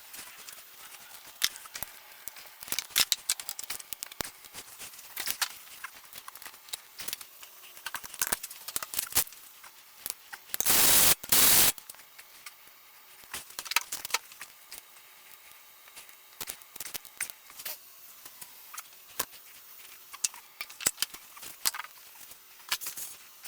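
Scattered clicks, clinks and knocks of tools and car parts being handled during reassembly of a car's front end, with one loud burst of noise about a second long near the middle.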